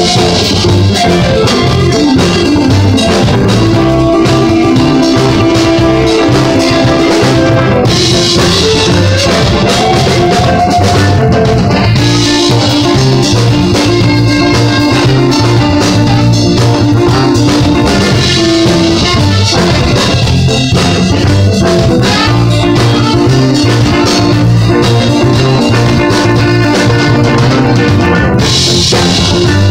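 Live band playing loudly: guitars and a drum kit keeping a steady beat, with sustained guitar notes over the top.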